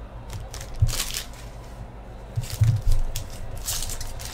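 Upper Deck hockey card pack wrappers crinkling and tearing as packs are opened and cards handled, with a few soft knocks of handling.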